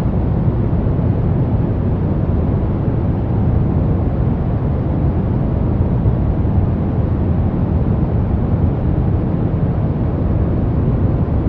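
Soft brown noise: a steady, even hiss weighted toward the low end, strongest in the bass and fading off toward the highs, with no change throughout.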